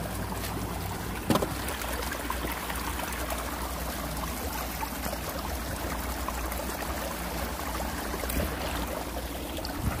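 Water running and trickling steadily in a concrete irrigation ditch, with a single knock about a second in.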